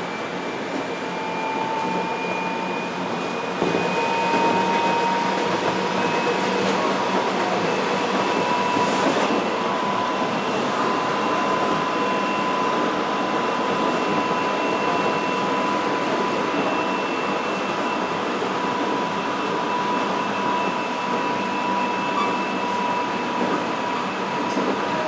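Subway train running, heard from inside the car: a steady rumble and rush from the wheels on the track, with two thin steady whines over it. The lower whine rises a little in pitch over the first several seconds, and the noise grows louder about three and a half seconds in.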